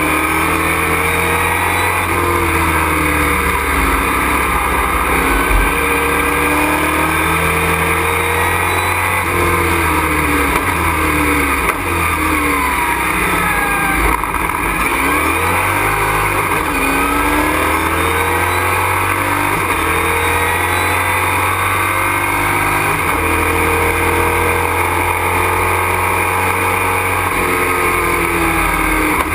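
Race truck's engine heard from inside the cockpit at racing speed, its pitch climbing under acceleration and dropping back repeatedly as it shifts and slows for corners, over steady road and wind noise.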